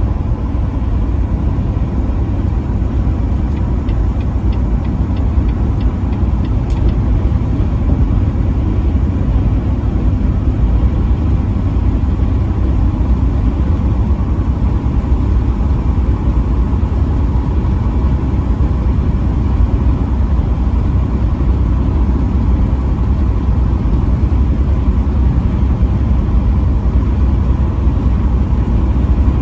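Steady low rumble of a road vehicle cruising at highway speed: engine and road noise with no horn blowing.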